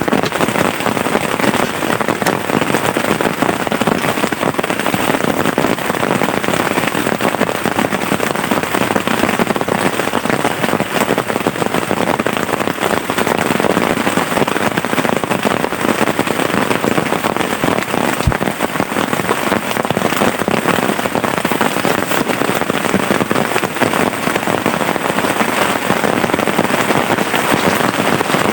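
Heavy rain falling steadily, a dense, even patter of drops on a surface.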